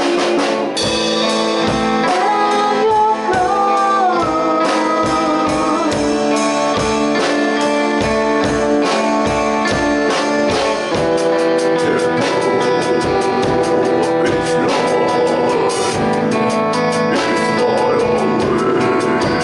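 A band playing a song in rehearsal: sustained instrumental chords and a melodic line over a steady drum beat.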